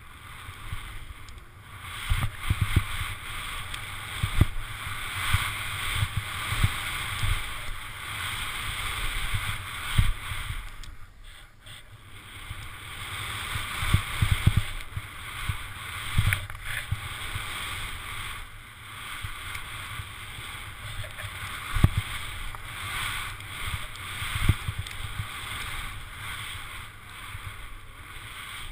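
Skis running through deep powder snow heard on a helmet-mounted action camera's microphone: a rushing hiss of snow that swells and fades with the turns, with low thumps of wind buffeting and knocks on the camera, dipping briefly twice.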